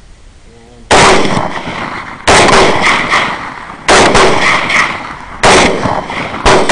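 Five rifle shots about a second and a half apart, each sudden crack trailing off in a long echo.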